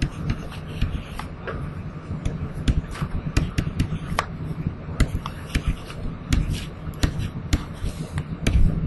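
Stylus tapping and scratching on a pen tablet while a chemical structure is written: irregular sharp clicks and short scrapes several times a second, over a steady low hum.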